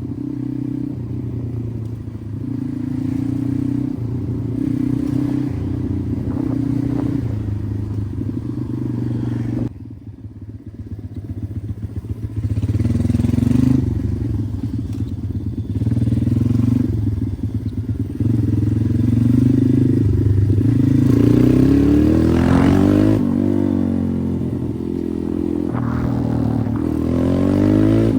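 Pit bike's single-cylinder engine running under throttle while riding, holding steady revs, easing off about ten seconds in, then revving up hard twice near the end.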